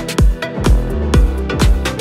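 Background electronic dance music with a steady kick drum beating about twice a second.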